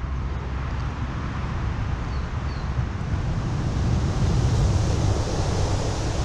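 Wind buffeting the microphone: a steady low rumble with a rushing noise that grows louder about halfway through.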